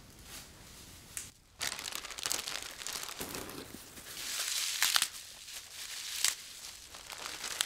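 Fresh kale and curly parsley rustling and crackling as they are pulled apart by hand and pushed into plastic bags, with bag plastic crinkling. Quiet at first; the crinkling starts about a second and a half in and goes on unevenly with a few sharper crackles.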